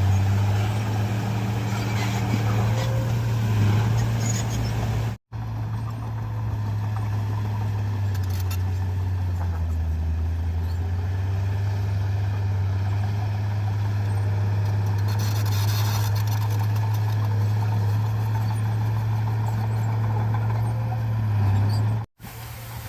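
Bulldozer's diesel engine running steadily under load, a deep low hum with a slight dip in pitch about midway. The sound drops out for an instant twice, about five seconds in and near the end.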